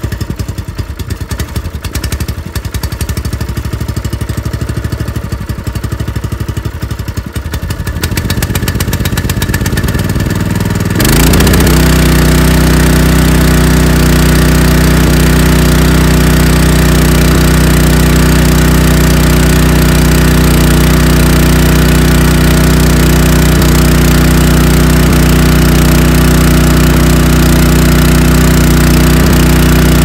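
Small gasoline engine on a portable water transfer pump running slowly with an uneven firing beat. About eleven seconds in it speeds up sharply and then runs loud and steady at high speed.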